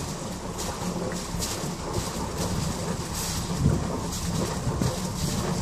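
Water rushing and churning into a canal lock through the upstream gate sluices as the lock fills: a steady rushing rumble.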